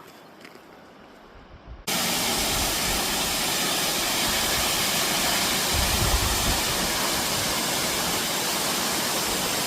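Waterfall rushing: a loud, steady wash of water noise that starts suddenly about two seconds in and cuts off abruptly at the end.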